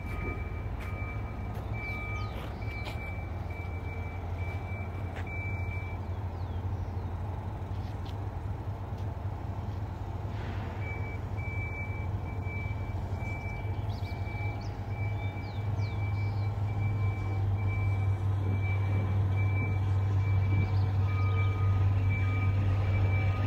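Battery-electric rail car mover moving a passenger train, its warning beeper sounding about twice a second over a steady low hum. The beeping stops for a few seconds partway through and then resumes, and the hum grows louder in the second half as the train comes closer.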